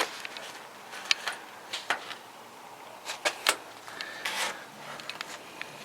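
Scattered light clicks and taps from handling, with a brief rustle about four seconds in.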